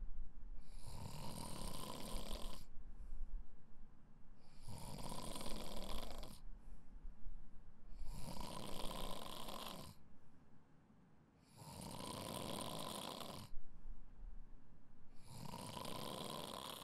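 A sleeping person snoring: about five snores, one roughly every three and a half seconds, each lasting about two seconds.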